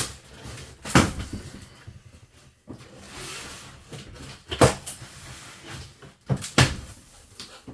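A large cardboard box being opened and handled: several sharp knocks and thumps of cardboard, two of them close together near the end, with a scraping rustle in the middle as the flaps are pulled open.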